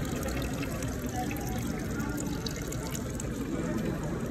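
Steady murmur of a crowd of people talking at once inside a large vaulted stone hall, with no single voice standing out.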